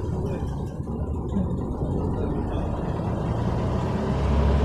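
A motor vehicle's engine running with a low rumble, growing louder toward the end, with a rising hiss of noise above it.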